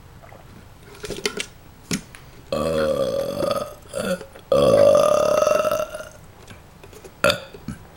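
A person burping on demand after drinking soda: two long burps, the first about two and a half seconds in and the second, louder one about a second later, lasting over a second. A few short clicks come before and after them.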